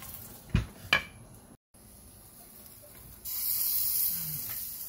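Two sharp clicks about half a second and a second in, then, a little past three seconds, a hissing sizzle from the beef roast cooking on the kamado grill grate that slowly fades.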